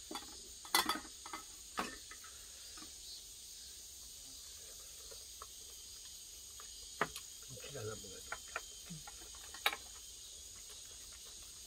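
A steady, high-pitched chorus of insects, with scattered sharp clicks of chopsticks and spoons against stainless steel bowls, the loudest near the start and end.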